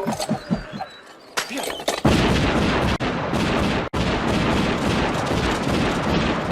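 Film action-scene sound effects: a few sharp hits, then about two seconds in a loud, dense rush of noise like gunfire and mayhem that runs on with one brief break.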